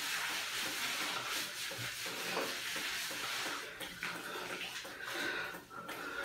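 Shower water spraying with a steady hiss that thins out about four seconds in.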